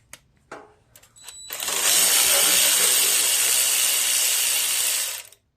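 Socket wrench working the 8 mm nut off the carburetor's ground wire: a few separate clicks, then about four seconds of continuous fast ratcheting that stops suddenly.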